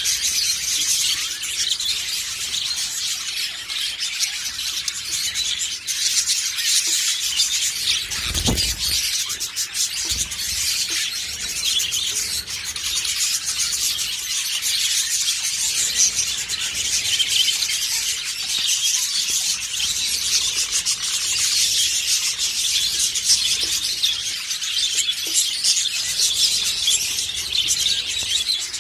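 Budgerigars chattering and chirping without pause in high, dense warbles. A low dull thump comes about eight and a half seconds in.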